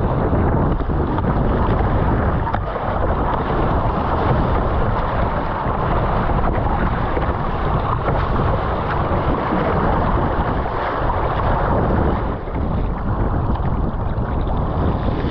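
Wind buffeting the microphone, mixed with water rushing and splashing against a surfski's hull as it surfs waves. The noise is loud and steady throughout, with no separate knocks or strokes standing out.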